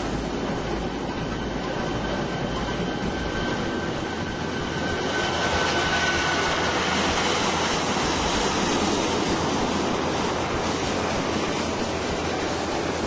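Jet airliner engine noise: a steady rush with a faint high whine that fades out about halfway through.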